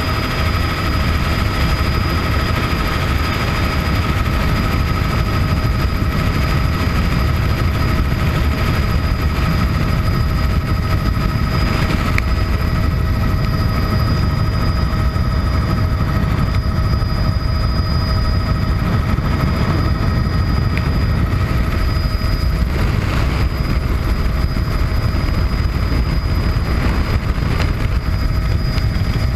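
Cabin noise of a 1980 Bell 206B3 JetRanger helicopter in cruise flight: a steady low rumble from the rotors and airframe, with the high, steady whine of its Allison 250 turboshaft engine on top.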